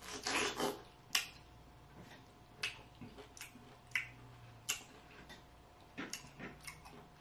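Someone chewing juicy pineapple close to the microphone: quiet, irregular wet mouth clicks and smacks.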